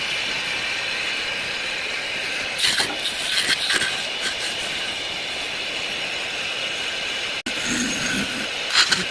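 Steady mechanical hiss, broken by clusters of rattling clicks about three seconds in and again near the end, with a momentary dropout shortly before the end.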